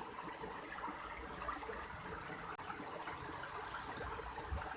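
Water flowing steadily in a rice-field irrigation channel, a continuous trickling rush.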